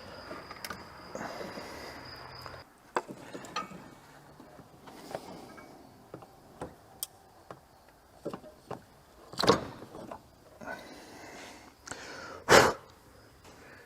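Hand tools and parts clicking and knocking sporadically while an ignition coil is swapped on a 2001 Ford F150's engine, with two louder sharp knocks late on. A faint steady hum stops about two and a half seconds in.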